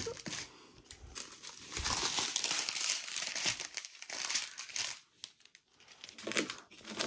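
Clear plastic packets of diamond-painting drills crinkling as they are handled, in irregular spells with a short pause about five seconds in.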